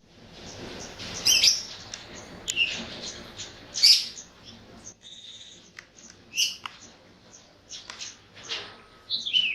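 Wild birds chirping: many short high chirps from several birds, with a few louder sharp calls scattered through and one call sliding down in pitch near the end.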